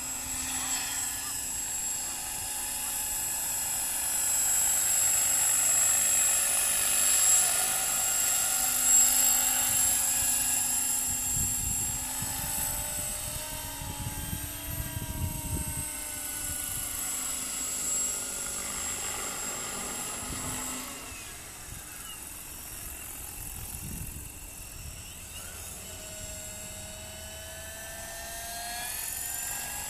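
Accurate 550 radio-controlled helicopter in flight: a high whine whose pitch slides up and down as it manoeuvres, louder in the first half, fading for a few seconds past the middle and swelling again near the end.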